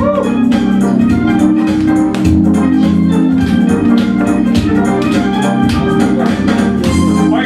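Karaoke backing track of a pop song in an instrumental passage: sustained organ-like keyboard chords over a steady drum beat.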